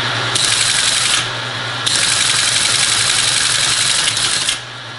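Teletype Model 33 ASR's typing unit clattering as it cycles, in two spells, a short one and then a longer one that stops near the end, over the steady hum of its motor. It is the machine chattering in line mode, stopping and starting as its 20 mA current loop is switched by hand.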